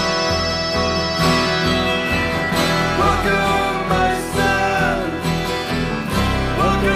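Music: acoustic guitar with a singing voice.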